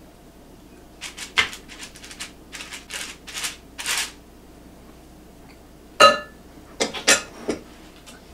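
Cookie scoop scraping the last of the candy mixture out of a glass mixing bowl in a quick run of short scrapes and taps. About six seconds in comes a sharp ringing clink of the scoop against the glass bowl, then a few more knocks as the bowl is handled.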